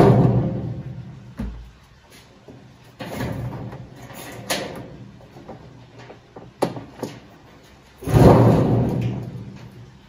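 Parts of a washing machine being handled during disassembly: a loud knock at the start and another about eight seconds in, each fading over a second or two, with scraping and a few sharp clicks between.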